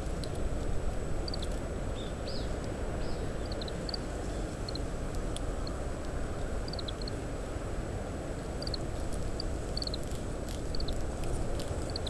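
Oriental greenfinch giving its short, high call notes again and again, singly and in small groups. Under them is a steady low rumble of wind noise.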